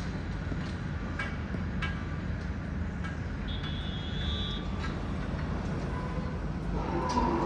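Steady low rumble of outdoor urban background noise, with a few faint clicks and a brief thin high tone about three and a half seconds in.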